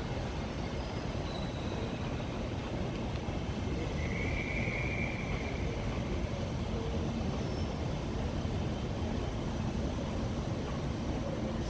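Steady low rumble of trains running through a large railway station, with a brief high squeal about four seconds in.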